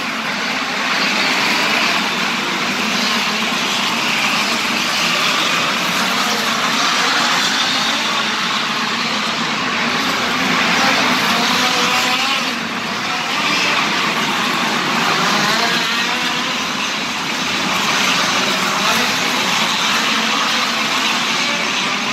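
A field of midget race cars' four-cylinder engines racing around an indoor dirt oval. The engine notes rise and fall as cars pass and take the corners, blending into a steady, echoing din in the arena hall.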